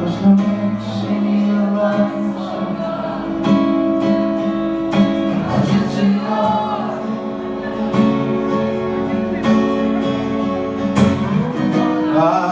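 Live performance of a song: strummed acoustic guitar with held instrumental notes and singing.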